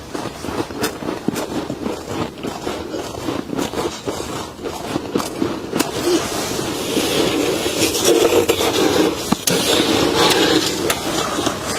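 Freezer frost crunching close to the microphone: a dense run of sharp crackles and snaps that thickens into heavier, continuous crunching about halfway through.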